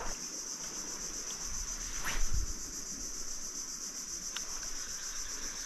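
A steady, high-pitched chorus of insects, with a short click and a soft low knock about two seconds in.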